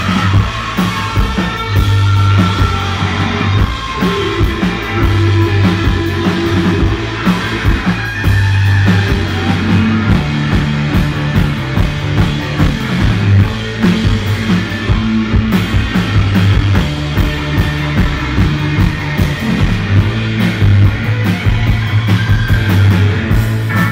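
Live rock band playing loudly: drum kit with cymbals, electric guitar and a steady driving bass line.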